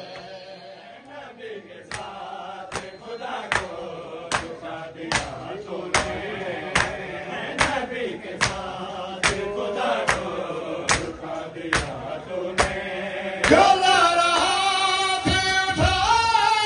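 A crowd of men chanting a noha together, kept in time by unison chest-beating (matam), a slap a little under once a second. About three-quarters of the way in, a reciter's voice comes in loud over a microphone and leads the chant.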